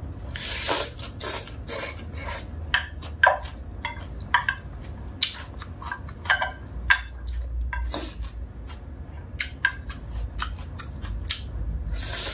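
A person slurping and chewing dry instant noodles, with many small clicks of chopsticks and a wooden spoon against a plate. The louder slurps come right at the start, about eight seconds in, and near the end.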